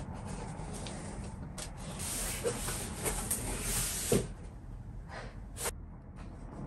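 Cardboard shipping box being opened by hand: the flaps scrape and rustle as they are pulled back, loudest from about two to four seconds in, with a few knocks against the cardboard, then quieter paper handling near the end.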